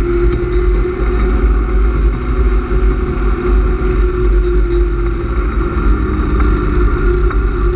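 BMW E36 328is's 2.8-litre straight-six, fitted with a cold air intake and tune, running steadily under load at track speed, heard from inside the cabin over a heavy low rumble.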